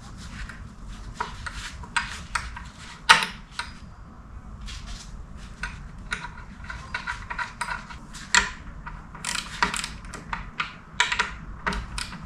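Scattered clicks, knocks and metallic clinks of hand work on a wooden post and its metal plate, with the sharpest knock about three seconds in.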